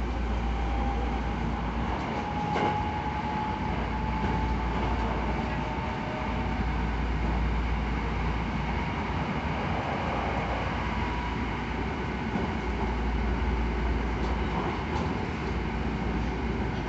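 Hankyu 9000 series electric train running, heard from inside the passenger car: steady wheel-on-rail rumble with the whine of its Toshiba IGBT VVVF inverter and traction motors, rising slowly in pitch over the first ten seconds or so. A short knock about two and a half seconds in and a couple more near the end.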